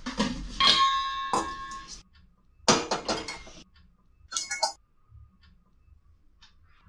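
Stainless-steel pots and utensils clattering and clinking on a kitchen stove. One vessel rings briefly about a second in, with more clatter near three seconds and a ringing clink a little later, then only faint ticks.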